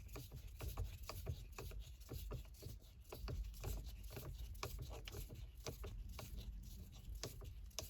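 Faint, rapid, irregular light clicks and taps, several a second, from a screwdriver turning the T20 screw that holds the new gear knob on the gear lever.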